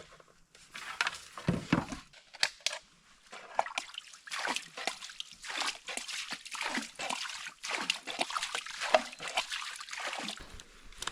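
Water splashing and sloshing in irregular bursts, with a low thump about one and a half seconds in.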